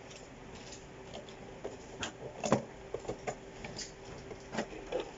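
Small plastic toy pieces being handled and set down: a few light clicks and taps over a faint steady hum.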